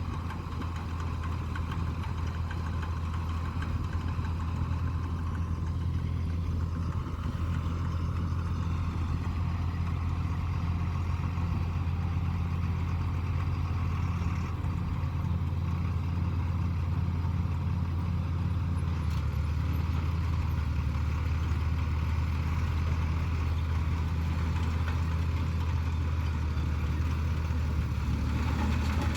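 Tractor engine running steadily at an even speed, a continuous low hum that shifts slightly in pitch about a third and two thirds of the way through.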